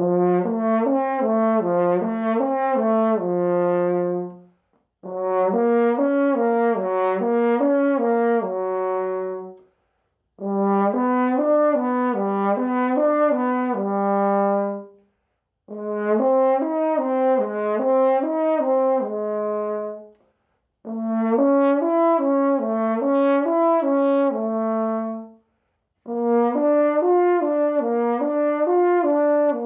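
French horn playing a lip-slur flexibility exercise: six phrases of quick slurred notes up and down a triad within a fifth, each held on one valve combination and ending on a long note. There is a short breath gap between phrases, and each phrase starts a semitone higher than the one before.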